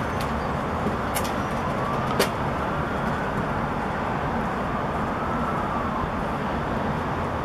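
Steady city traffic noise, with a faint distant siren slowly rising and falling twice. A couple of sharp clicks sound about one and two seconds in.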